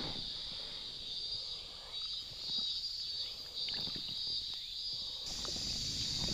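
Steady high-pitched insect drone in the surroundings, with a few faint clicks.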